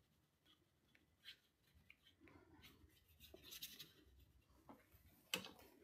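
Faint scratching of a flat brush worked over cold-press watercolour paper, with a few soft ticks and a sharper tap near the end.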